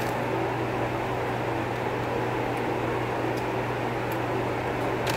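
A steady low mechanical hum, with a few faint short clicks as an onion ring is eaten.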